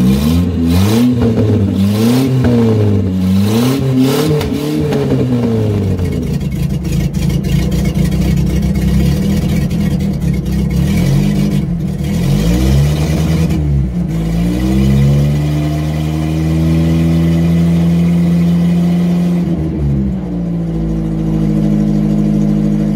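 Datsun 521 pickup's larger swapped-in engine running for the first time. It is revved up and down several times in the first six seconds, then runs at a steady speed, dipping and picking back up twice later on.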